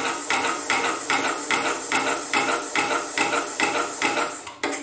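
Small single-cylinder compressed-air engine with an eccentric-driven piston valve, running on shop air: a hiss of air with a rhythmic puffing clatter at about two to three beats a second. It stops abruptly near the end as the air is shut off.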